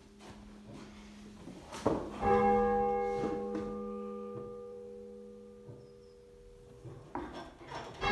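Half-muffled 10 cwt tenor church bell tolling: one clear stroke about two seconds in that rings on with several steady tones and slowly fades, then another stroke right at the end. Each stroke is preceded by a few dull knocks.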